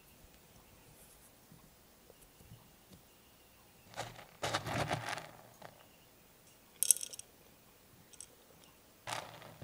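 Granular substrate spooned and poured into a glass jar, the granules rattling against the glass in a longer burst about four seconds in and a shorter one near the end. A single sharp clink of the metal spoon about seven seconds in.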